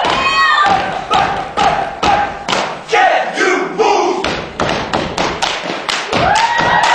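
Dancers stomping and clapping in a stepping routine: a string of loud, sharp thuds and slaps at an uneven rhythm. Audience shouts and whoops run under it and rise near the end.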